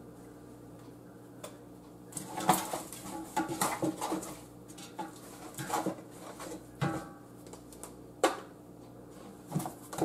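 Seasoning shakers and spice containers being handled over a pot of pork bones: irregular clicks, taps and knocks as they are shaken, tapped and set down on the counter.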